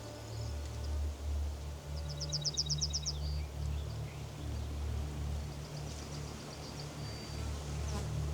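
A songbird's rapid trill of about eight high notes, with fainter bird calls later, over a steady low rumble.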